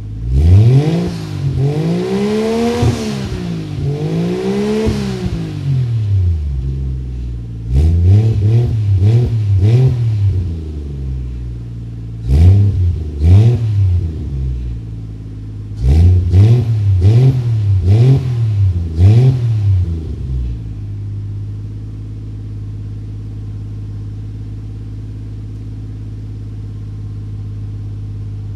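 Toyota 1JZ-GTE inline-six, converted to a single turbo and fitted with a 5ZIGEN exhaust, being revved: two long revs up and down, then several groups of quick throttle blips. After about twenty seconds it settles to a steady idle.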